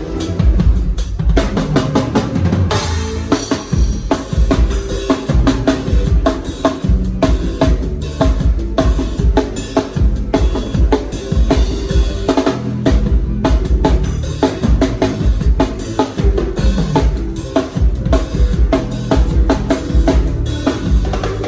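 Live drum kit played in a steady groove during a band soundcheck: bass drum, snare and cymbal hits in a dense, even rhythm, with other pitched instruments sounding along.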